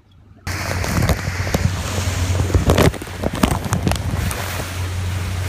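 Honda four-stroke outboard motor running as a small tender moves across the water: a steady low hum under rushing wind on the microphone, with irregular knocks and buffets. It comes in suddenly about half a second in.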